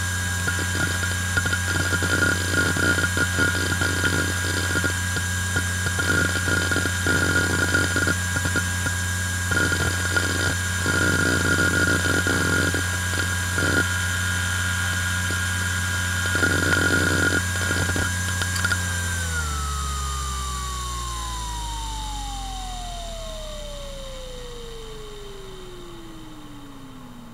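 IBM Travelstar 25GS five-platter 2.5-inch IDE hard drive spinning with a steady hum and high whine, its heads seeking in irregular bursts of clicks as the system writes out and shuts down. About 19 seconds in the seeking stops, the power is cut, and the whine falls steadily in pitch and fades as the platters spin down.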